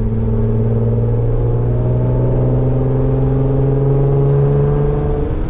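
Modified Infiniti Q50's engine and exhaust under steady acceleration, the engine note climbing gradually in pitch, then dropping near the end.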